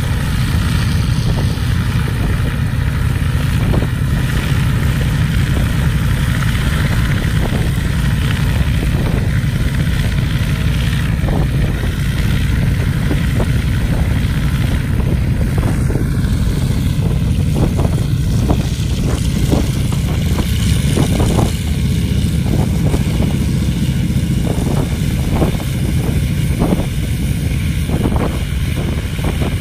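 PZL-106 Kruk agricultural aircraft's engine running on the ground with the propeller turning: a loud, steady low drone.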